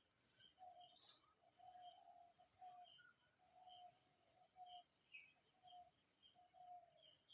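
Near silence with faint background chirping of birds and insects, short notes repeating a note or two every second.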